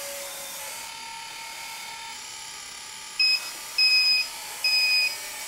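Steady whine of the 1/14 RC metal wheel loader's small electric motors as the model is driven round. From about three seconds in come four loud electronic beeps, each a short two-pitched tone about half a second apart.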